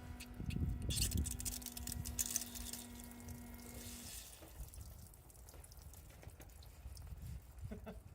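Diesel splashing and dripping out of a leaking fuel-system joint, with a steady electric hum that stops about four seconds in; after that, only scattered drips and small handling sounds.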